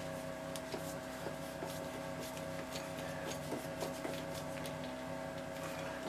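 Scattered light clicks and taps from hands working plastic RV water-line fittings onto PEX lines, over a steady hum.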